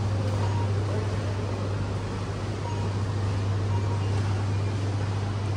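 Supermarket room tone: a steady low hum with an even background hiss, the kind given off by the store's air handling and refrigerated cases.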